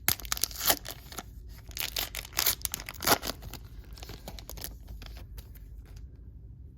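A trading card pack wrapper being torn open and crinkled by hand, a run of sharp crackling rustles that stop about five seconds in.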